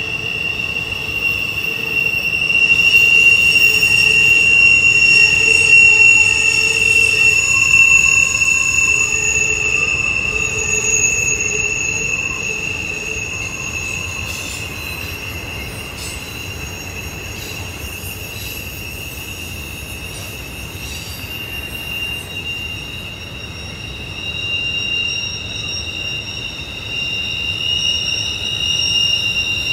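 Wheels of an intermodal freight train's trailer-carrying flatcars squealing against the rail as the cars roll through a tight curve, a steady high-pitched tone with several overtones over the low rumble of the wheels. The squeal is loudest a few seconds in, eases off through the middle and swells again near the end.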